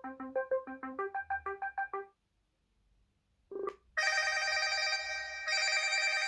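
ZTE Axon M smartphone ringtones playing through its loudspeaker. A quick melody of short notes is cut off about two seconds in. After a short single tone, a different ringtone of held, bright chiming chords starts at about four seconds, with a brief break partway through.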